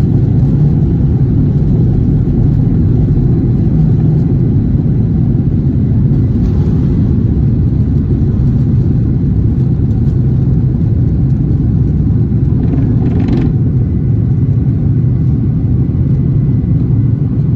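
Steady low rumble of a departing airliner's engines heard from the ground, with two short swells of hiss about six and thirteen seconds in.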